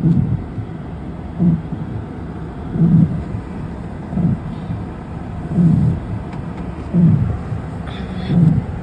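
Car windshield wipers sweeping in the rain: a low thump on each stroke, about every second and a half, over steady cabin and road noise. The blades are noisy enough that the man who changed the oil suggested new wipers.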